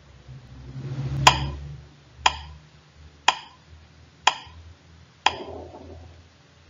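Countdown timer sound effect: five sharp ticks, one a second, each with a brief ringing tail, counting off the five seconds allowed to answer.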